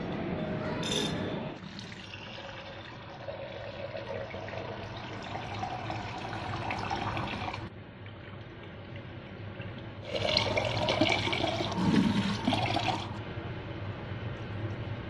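Water pouring and splashing into a stainless-steel sink as lentils are rinsed in a drinking glass and the water tipped off through them. The splashing is loudest for about three seconds, some ten seconds in.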